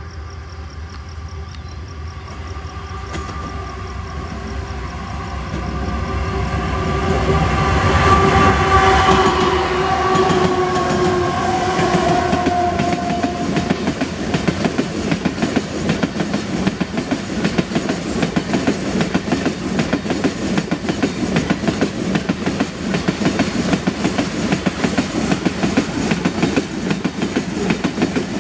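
An iron-ore freight train passing. Its locomotives approach with a steady droning tone that grows louder and then drops in pitch as they go by. About halfway in, the ore wagons follow with a continuous rumble and a rapid, rhythmic clickety-clack of wheels over the rail joints.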